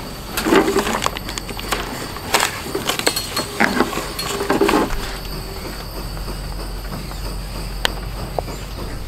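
Paper coffee filter rustling as it is folded and fitted into a pour-over dripper, with light knocks and clinks of the dripper and cups, in several short bursts over the first five seconds and a few single clicks later.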